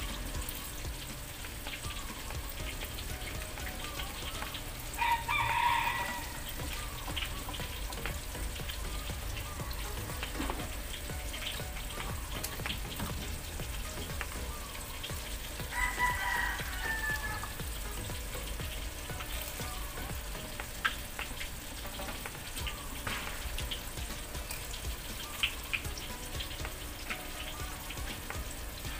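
A rooster crowing twice, about five and sixteen seconds in, each crow roughly a second long, the second falling away at its end. Under it runs a low steady hum with faint scattered clicks.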